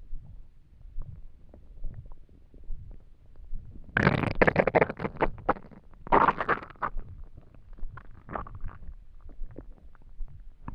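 Empty human stomach rumbling and gurgling from hunger: soft low gurgles and pops throughout, with two loud gurgles about four and six seconds in and a smaller one a little later.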